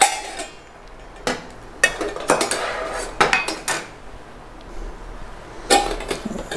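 Stainless steel containers of a Cello four-container lunch box clinking and knocking against each other and their lids as they are lifted off the stack and handled. The sound is a string of separate metal clinks, a few of which ring briefly.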